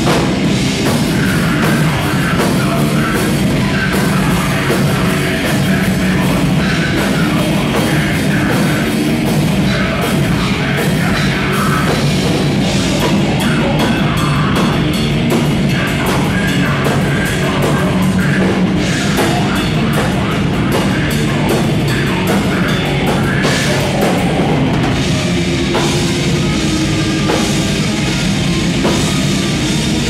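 Live heavy metal band playing loud and without a break: electric guitars over bass and a pounding drum kit.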